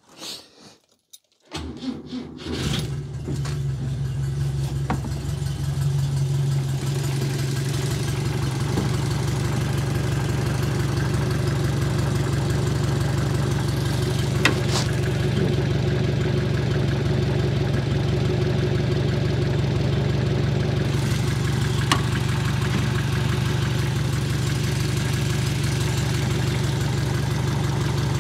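1964 Renault Dauphine Gordini's rear-mounted four-cylinder engine starting up about a second and a half in, catching after a brief ragged moment and then idling steadily.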